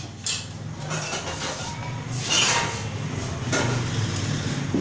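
Pots, pans and household clutter being shifted and knocked together as someone rummages through them, a run of scrapes and clatters with the loudest about halfway through.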